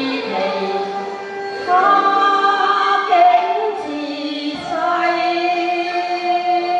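A woman singing a Cantonese opera song with long held notes over bowed-string accompaniment.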